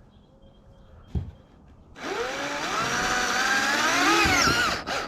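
Electric drill running and boring a hole in the kayak's hull for a mounting block. Its whine climbs in pitch over about three seconds, then stops, and a short second burst comes right at the end.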